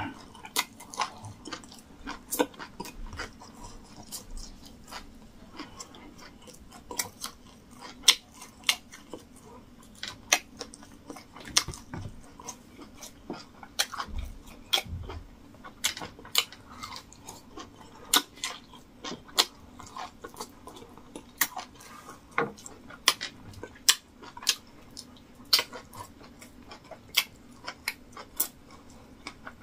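A man chewing a mouthful of rice and stewed meat close to the microphone, with irregular wet clicks of the mouth about one or two a second.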